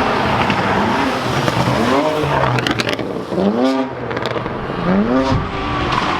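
Car engine accelerating hard, its pitch rising three times in quick succession as it revs up, over dense noise.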